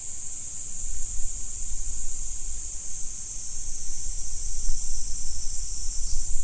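Steady high-pitched chorus of insects droning without a break, over a low, uneven rumble of wind on the microphone.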